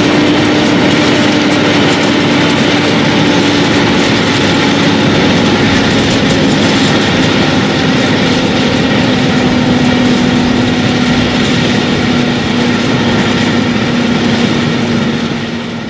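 John Deere 7930's six-cylinder diesel engine running under load while pulling a Maschio power harrow, mixed with the clatter of the harrow's rotating tines working dry soil. A loud, steady drone whose pitch sinks slowly; it fades out near the end.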